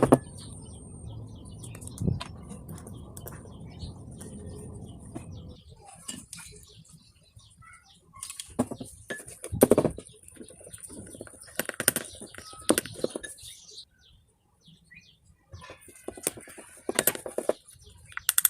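Homemade slime of Fevicol glue and borax activator being mixed and handled: a low steady rumble for the first five seconds or so, then irregular clicks and short sticky crackling bursts.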